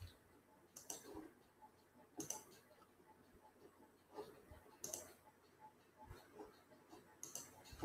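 Near silence with a few faint, scattered clicks from working a computer.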